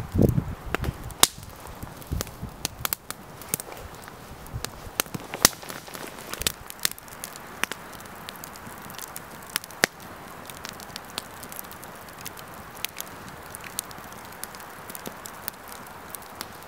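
Wood campfire crackling, with sharp, irregular pops of burning sticks, one after another. A low thump sounds right at the start.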